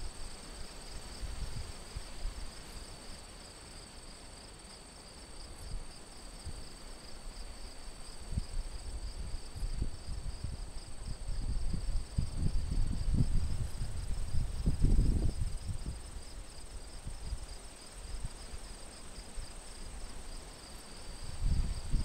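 A steady chorus of field insects such as crickets: one shrill constant tone above a faster pulsing trill. Under it, wind gusts rumble on the microphone, strongest in the middle.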